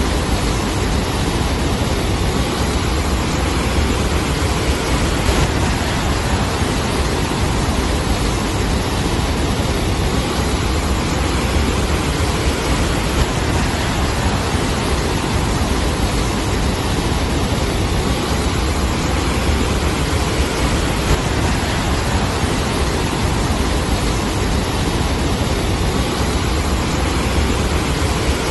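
Cyclone wind and storm surf on a flooded shore: a loud, steady rush of noise, with a heavy low rumble of wind buffeting the microphone.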